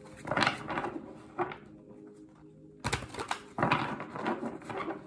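A Silver Witchcraft Tarot deck being shuffled by hand: short papery swishes and taps of the cards, with a denser run of shuffling a little before the middle. Soft steady sleep-frequency music plays underneath.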